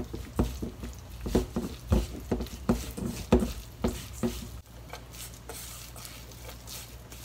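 A hand kneading thinly sliced beef coated with potato starch and seasonings in a stainless steel bowl: soft, irregular squelches and pats, growing much quieter about four and a half seconds in.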